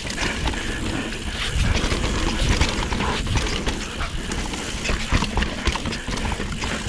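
Mountain bike riding down a dirt trail, heard from the rider's GoPro: a dense rumble of wind on the microphone under a continuous clatter and rattle of the bike over bumps.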